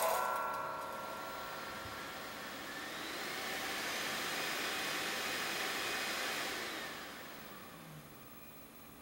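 Steady rush of air from a household electrical appliance's motor, like a blower or hair dryer, swelling about three seconds in and dying away near the end.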